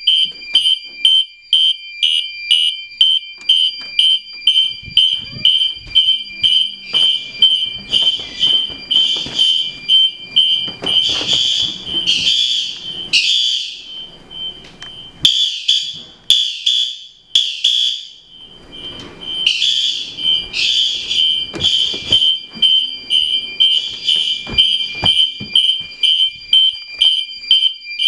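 Fire alarm horns sounding on march-time coding: rapid pulses of a shrill horn tone, about two a second, over a steadier alarm tone.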